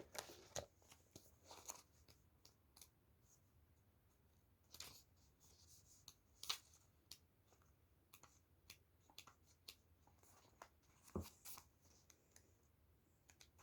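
Faint rustling and soft clicks of oracle cards being leafed through by hand while searching the deck, with a few louder card flicks scattered through.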